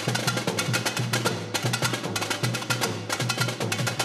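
Samba bateria percussion playing a fast, dense rhythm of sharp drum and wood-block-like strokes over a repeating low drum beat.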